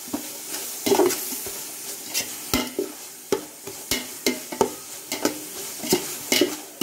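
Spatula scraping and stirring onion-tomato masala in a large metal pot, quick irregular scrapes two or three a second over the sizzle of the masala frying in oil.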